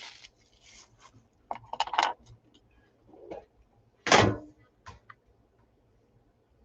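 Handling of a metal colored-pencil tin: scattered clicks and light rattles, with one louder knock about four seconds in.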